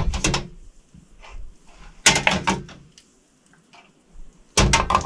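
Glass half-litre jars knocking and clinking against each other and the stainless steel autoclave pot as they are set down inside. There are three quick runs of sharp knocks with a short ring: one at the start, one about two seconds in, and one near the end.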